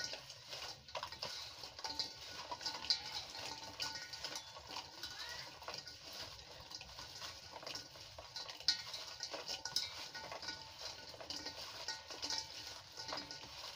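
Hands tossing and mixing cut badhar (monkey jack) pieces with salt and turmeric in a steel bowl: an irregular patter of small clicks and rustles as the pieces knock against each other and the metal.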